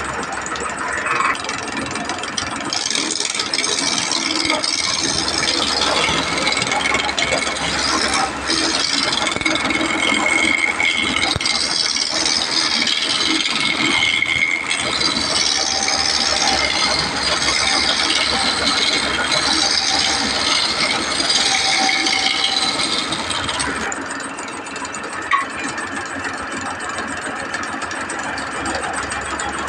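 Wood lathe spinning a long wooden blank while a turning tool cuts it, giving a steady rasping hiss from about three seconds in; about six seconds before the end the cutting stops and only the lathe's quieter running is left.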